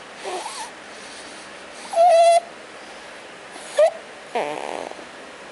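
Pig-like snoring with whistling squeaks: a short squeak, a held high whistle about two seconds in (the loudest sound), another quick rising squeak, then a rougher, buzzing snore falling in pitch near the end, with breathy hiss between.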